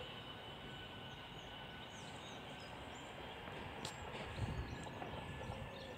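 Faint steady outdoor background noise with a few brief, high bird chirps, and a slight low rumble about four and a half seconds in.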